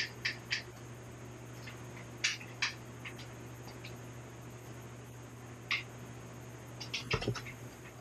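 Scattered small clicks and scratches, with a quick cluster near the end, from hands and a tool working at the bottom edge of a 2008 iMac during a RAM upgrade.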